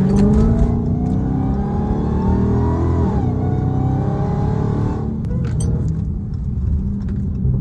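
Dodge Hellcat's supercharged 6.2-litre HEMI V8 revving, its pitch climbing for about three seconds, dipping briefly, then held before it drops back to a steadier lower run about five seconds in. The owner calls the noise it makes weird and doesn't know its cause.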